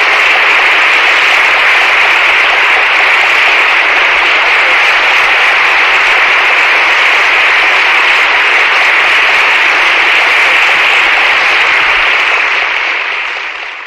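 Audience applauding steadily, fading out over the last couple of seconds.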